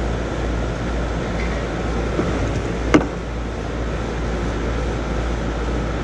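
Outdoor R-410A air-conditioner condensing unit running close by: a steady low hum from the compressor under the rush of the condenser fan. One sharp click about three seconds in.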